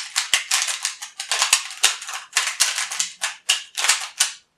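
Plastic layers of a MoYu RS3M 2020 magnetic 3x3 speed cube being turned rapidly, a quick run of clacks several a second that stops just before the end.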